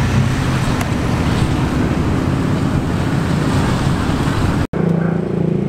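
Heavy wind noise on the microphone over the low running of a vehicle engine as a lifted Jeep Wrangler on mud tires rolls past. Near the end it cuts to a steadier low engine hum.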